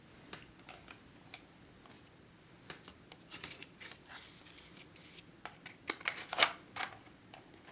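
Faint handling noise of paper or card: scattered small clicks and short rustles, busiest and loudest near the end.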